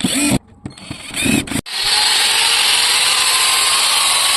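Electric grinder with its gear just replaced, switched on in two short bursts, then left running steadily at full speed with a high whine: a test run after the gear change.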